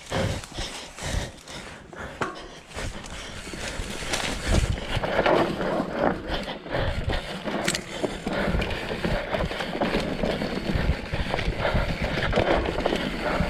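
Mountain bike riding over rough ground: an uneven clatter of knocks and rattles over the bumps, with a low rolling rumble that grows louder about four seconds in.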